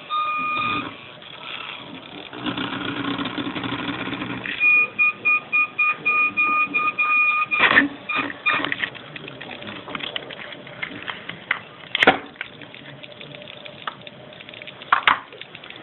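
Background music with a repeated high beeping tone, broken by a few sharp knocks.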